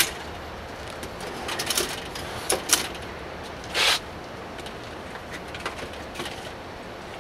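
Metal drawer slides and latches of a slide-out van kitchen as its stainless steel side tables are pulled out: a sharp click at the start, then a run of clicks and clacks, with a longer sliding rasp about four seconds in and a few light ticks after it. All of this sits over a steady background noise.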